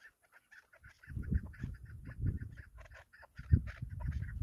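Chukar partridges calling, a fast run of short clucking notes, several a second. From about a second in, a loud low rumble comes and goes in gusts over the calls.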